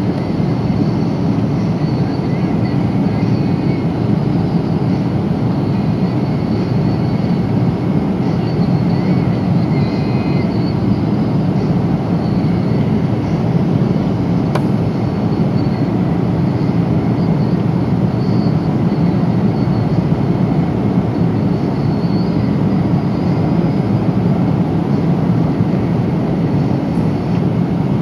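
Steady cabin noise of a Boeing 777-300 in cruise, heard from a passenger seat: the even rush of air over the fuselage with the low drone of the engines, strongest in the low range.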